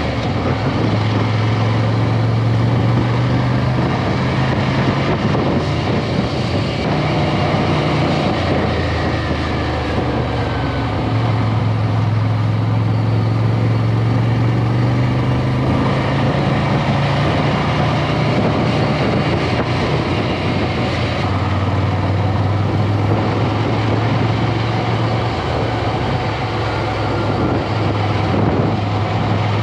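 Ducati Scrambler's air-cooled L-twin engine running under way, its note shifting up and down every few seconds as the speed changes, over steady rush of wind.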